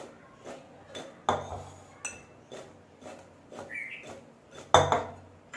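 Cut raw mango pieces being tossed in a bowl to coat them with salt and turmeric: soft knocks and clinks of the pieces against the bowl about twice a second, with two louder knocks, one just over a second in and one near the end.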